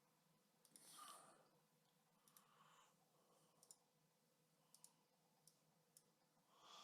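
Near silence, with a few very faint, short clicks scattered through it.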